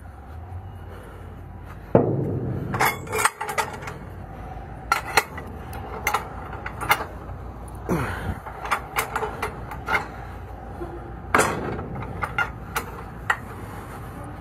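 Steel barge rigging being handled on a steel deck while making up a tow: many sharp, irregular metallic clanks and knocks of wire rope, chain and winch gear, starting about two seconds in, over a steady low rumble.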